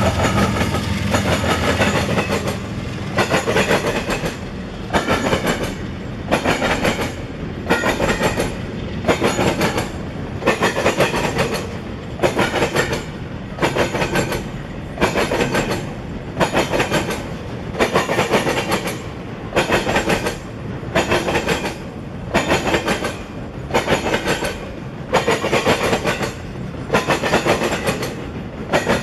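A CSX freight train passing: its diesel locomotive drones briefly at the start and fades, then the wheels of the double-stack container cars clatter in a steady rhythm, about one burst a second.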